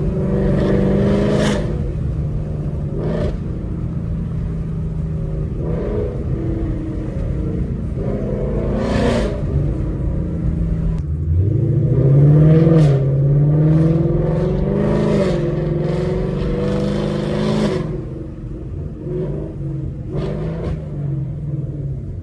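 Ford Mustang GT's 5.0 V8 with Kooks long-tube headers running on the road, a steady exhaust note that climbs in pitch as the car accelerates about eleven seconds in, then eases off and quiets near the end.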